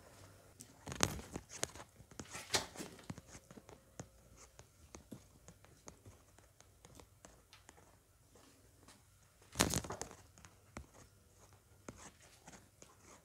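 Handling noises: short rustling and scraping sounds with light clicks. The loudest come about a second in, about two and a half seconds in, and near ten seconds in.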